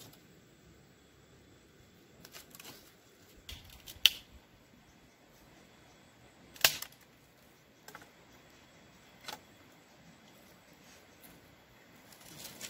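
A few sharp clicks and knocks at irregular intervals, the loudest two about four seconds and six and a half seconds in, over a quiet background.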